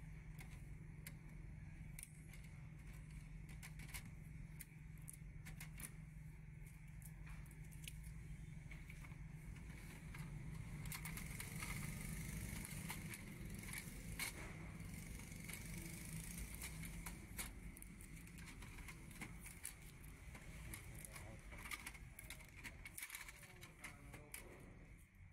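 Blue packing tape being peeled off a new Epson EcoTank printer while its plastic tray and covers are handled: scattered light clicks, crackles and tearing over a low steady hum.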